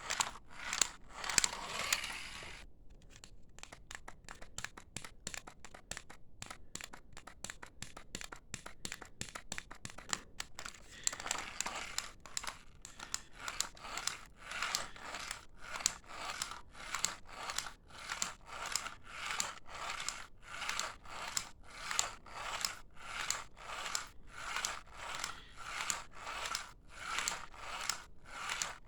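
Rhythmic scratchy scraping. It starts as a quick run of fine strokes, then becomes evenly spaced strokes at about one and a half a second.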